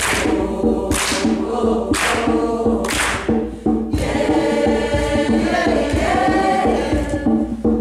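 Music with a group of voices singing a chant over a repeating low drone. In the first half there are four sharp hissing accents about a second apart, then the massed voices fill in from about halfway.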